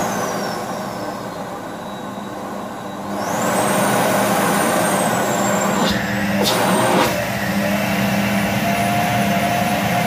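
Siemens X6.0 Extreme Power vacuum cleaner motor running with a high whine, speeding up to a higher pitch and louder about three seconds in. Two short knocks come around six to seven seconds in.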